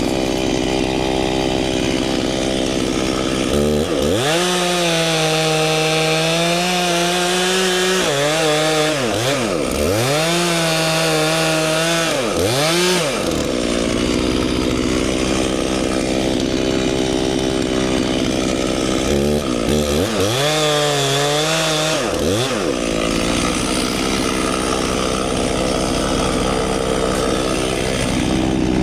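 Two-stroke Stihl chainsaw idling, then revved up to full throttle twice. The first run lasts several seconds, with the revs dropping and picking back up three times near its end; the second is shorter.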